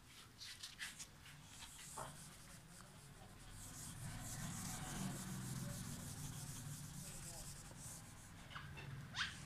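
Whiteboard eraser rubbing across a whiteboard, wiping off marker drawing, steadily for several seconds from about three seconds in, after a few light ticks.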